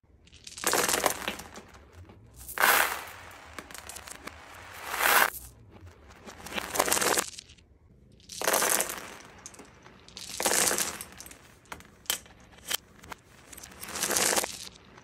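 Small hard beads, marbles and plastic dice clattering and scattering across a laminate floor. The clatter comes in bursts of about a second, roughly every two seconds, with a couple of single clicks between two of them.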